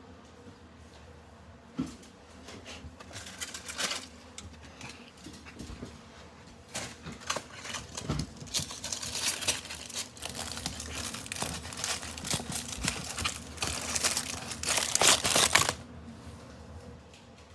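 A crinkly wrapper, likely a chocolate wrapper, being handled and torn open. The crackling comes in scattered bits at first, then runs dense and louder through the second half. It stops about two seconds before the end.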